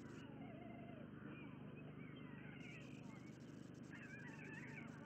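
White stork chicks giving thin, mewing begging calls that glide up and down in pitch, several times, the loudest near the end, over a steady low hum.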